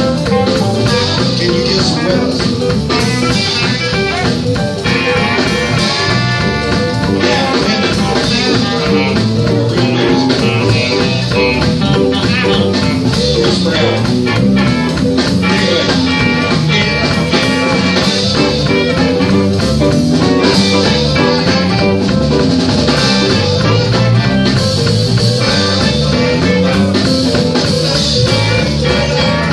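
Live blues band playing, with electric guitars and bass guitar, heard through a phone in the room; a passage of held lead notes comes about five seconds in.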